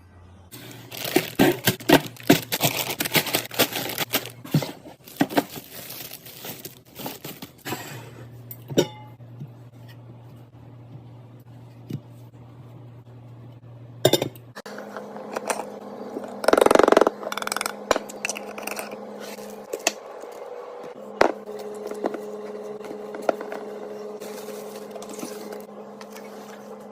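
Glass jars, bottles and containers clinking and clattering as they are set onto fridge shelves, with a dense run of clinks over the first several seconds and scattered ones after. In the second half there is a loud rustle lasting about a second and a steady low hum.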